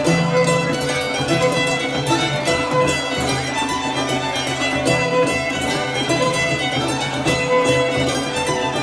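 Cheerful carnival-style music led by a fiddle, with dense sustained and plucked string notes.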